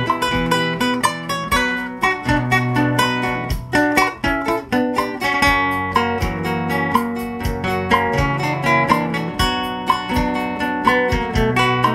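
Two acoustic guitars playing an instrumental passage together in a lively rhythm, mixing plucked notes and strums.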